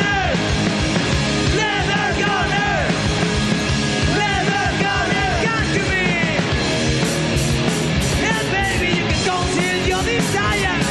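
A hard rock band playing live: a male singer's voice over electric guitar, bass and drums, with cymbals struck on the beat in the second half.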